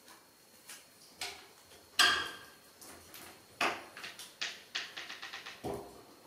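A series of sharp clicks and clatters of hard objects, loudest about two seconds in, then a quick run of ticks and a short lower-pitched knock near the end.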